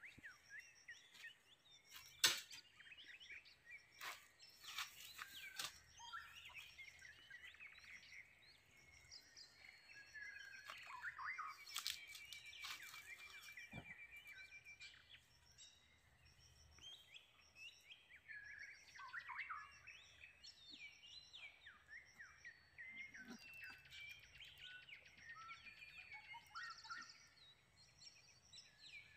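Faint forest birdsong: many birds chirping and calling in short phrases, with a sustained trill about halfway through and a steady high pulsing chirr underneath. A few sharp clicks, the loudest about two seconds in.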